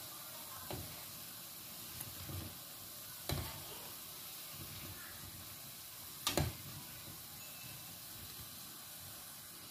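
Gemat dough balls deep-frying in a pan of hot oil, sizzling steadily. A metal slotted spoon knocks against the pan several times, loudest a little over six seconds in.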